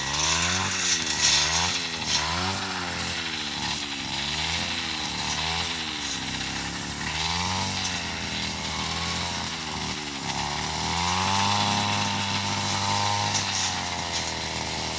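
Backpack petrol brush cutter cutting through tall grass, its engine revving up and down about one and a half times a second with each swing, then held at steady high revs for a couple of seconds near the end.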